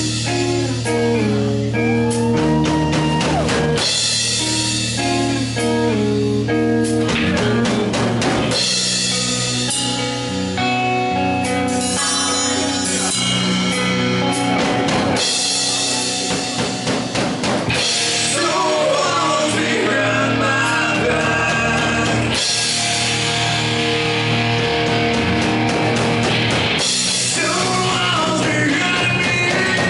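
Live rock band playing: two electric guitars, a bass guitar and a drum kit, with a man singing in parts.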